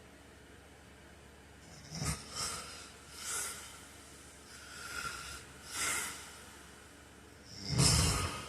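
A sleeping man snoring: from about two seconds in, a string of short, hissing breaths and snorts, then a loud snore near the end.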